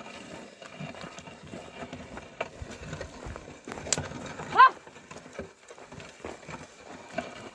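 A short, loud wordless call to a team of plough oxen about halfway through, rising then dropping in pitch, over faint scattered knocks and scuffs from the ploughing.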